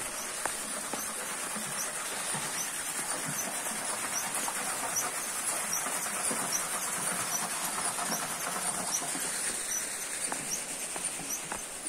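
Water running and splashing steadily from a stone spout into an icy channel, a little louder midway. Faint short high chirps repeat over it about every half second.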